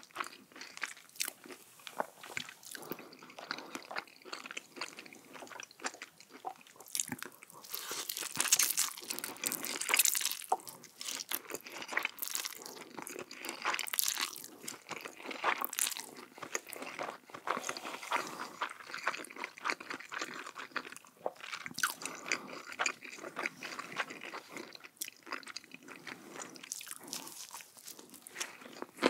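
Close-miked biting and chewing of crunchy food, a dense run of crisp crunches that comes and goes in bouts with each mouthful.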